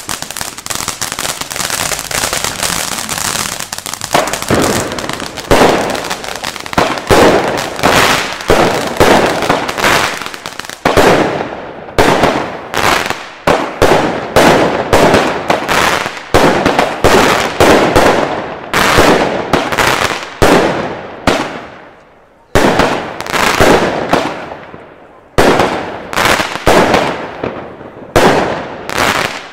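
Two Gaoo Elegia 20 mm firework batteries fired together. A crackling fountain sputters for the first few seconds, then a rapid run of shots follows, each launch thump trailing off into a crackling star burst, with a short pause about two-thirds of the way through.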